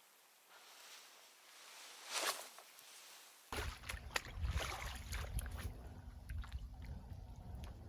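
Water sloshing and splashing with many small irregular splashes over a low rumble, starting abruptly about halfway through. A single swish comes about two seconds in.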